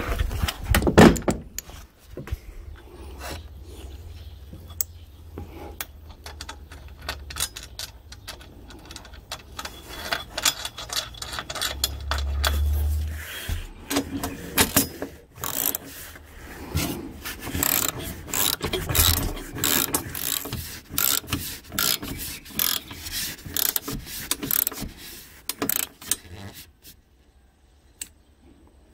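Socket ratchet wrench clicking as a mounting bolt is tightened, in long runs of quick clicks through the second half that stop near the end. A loud knock about a second in.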